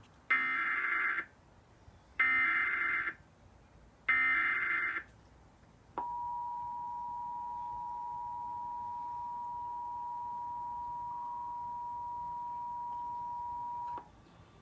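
Emergency Alert System test signal: three roughly one-second bursts of SAME header data tones, then the two-tone EAS attention signal, a steady dual tone held for about eight seconds that cuts off abruptly.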